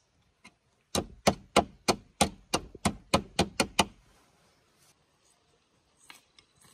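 A run of about eleven sharp knocks, about three a second, lasting about three seconds and coming a little faster near the end, then a few faint taps.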